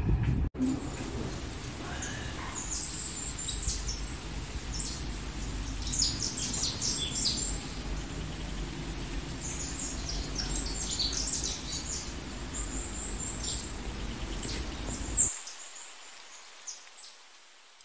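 Small birds chirping and twittering in quick high bursts over a steady low background rumble. The rumble cuts off suddenly near the end.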